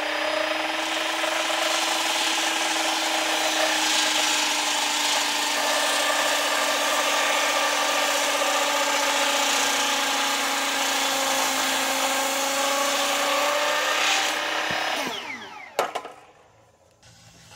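A large Skilsaw circular saw cutting through a thick cedar timber, its motor running at a steady whine under load for about fifteen seconds. It is then switched off, and the whine falls as the blade spins down, followed by a clunk.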